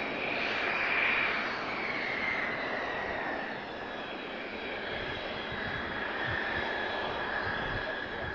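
Mitsubishi F-2 fighter's F110 turbofan whining as the jet taxis, a high tone sliding slowly down in pitch over steady rushing jet noise.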